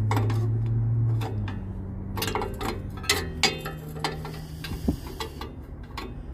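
Hand ratchet wrench clicking in short, irregular runs while working an oxygen sensor loose on the exhaust pipe, over a steady low hum.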